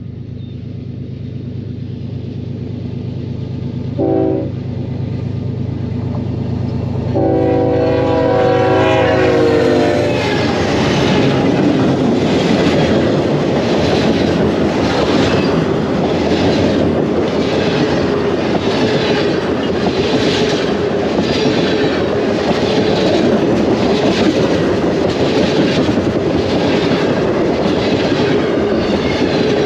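CN freight train locomotive horn: a short blast about four seconds in, then a long blast of a few seconds, over a low steady hum. After the horn, the train's tank cars roll past with a steady rumble and a rhythmic clickety-clack about once a second.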